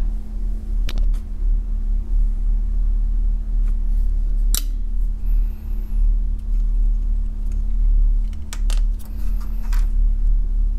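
A steady low hum with a held tone underneath, and a few sharp clicks and taps as capacitors and test clips are handled on the bench: one about a second in, a louder one near the middle, and a small cluster near the end.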